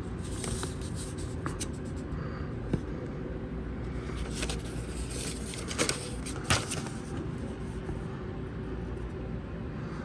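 Steady low background rumble, with a few soft rustles and taps as the paper manual is handled and shifted to another page.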